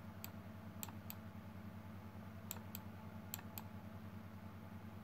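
Computer mouse clicking: a few pairs of quick clicks, each pair about a quarter second apart, over a steady low electrical hum.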